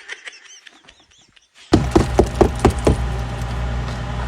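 Faint high chirps, then an abrupt cut to a steady low hum with a quick run of sharp knocks, several a second.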